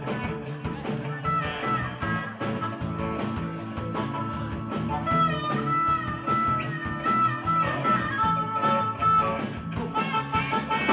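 Live blues-rock band playing an instrumental break: a harmonica solo of held, bending notes over electric bass, guitars and a steady drum beat.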